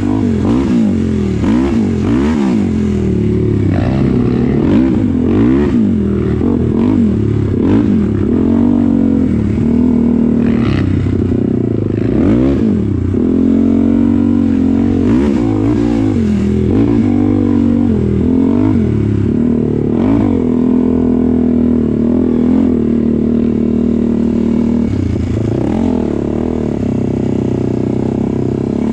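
Off-road vehicle's engine revving up and easing off again and again as it rides a bumpy dirt trail, with a few brief knocks over the rough ground.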